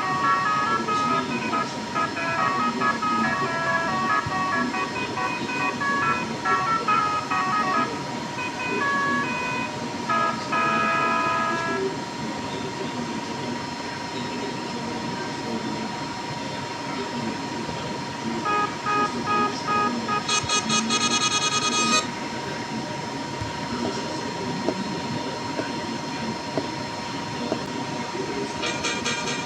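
Multi-tone 'telolet' air horn on an Indonesian bus playing a tune of stepped notes for about twelve seconds, then a shorter burst of notes about two-thirds of the way through, over steady traffic noise.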